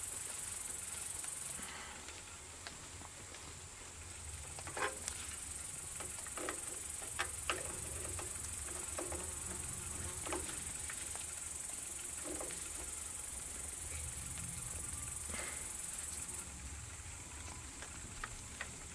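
Scattered light clicks and taps of hand work at the starter motor's wire terminal, over a steady high hiss.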